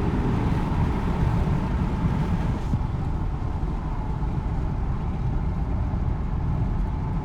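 Dodge Charger R/T's Hemi V8, fitted with an aFe cold air intake, running while the car drives. A clear engine note fades at the very start, then a steady mix of engine and road rumble.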